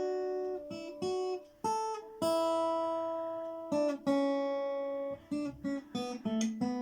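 Guitar being played: notes and chords struck one after another and left to ring, one held for over a second, with a run of quicker, shorter notes near the end.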